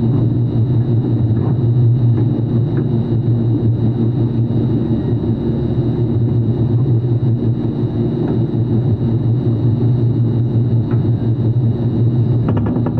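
A machine running steadily with a low hum and a faint high whine above it, unchanging throughout.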